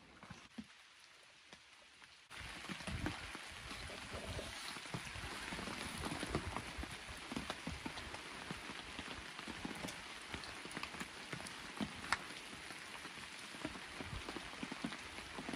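Steady rain falling, a dense patter of many small drops. It starts suddenly about two seconds in, after a quieter stretch.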